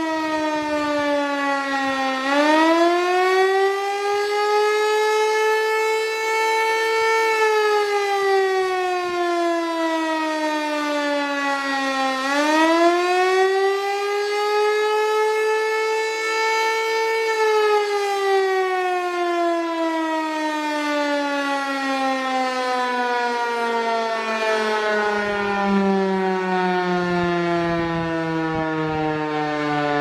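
Federal Signal Eclipse 8 electronic storm siren sounding the rising and falling wail of its Attack signal from its ring of speaker horns. The pitch climbs quickly twice, about ten seconds apart, holds briefly at the top, then falls; the last fall is long and slow and sinks lower near the end.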